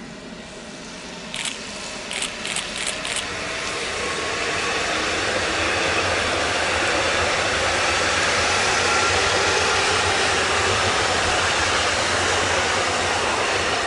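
Two coupled Stadler FLIRT electric multiple units pulling out of the station and passing close by. A steady rush of wheels and running gear builds over the first few seconds and stays loud as the cars go by. A quick run of five sharp knocks comes about a second and a half in.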